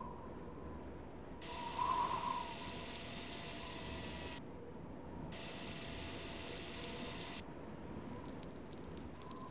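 Mechanical sound effects for the Curiosity rover's machinery: whirring motor passes that start and stop abruptly, twice, then a run of rapid ratcheting clicks near the end.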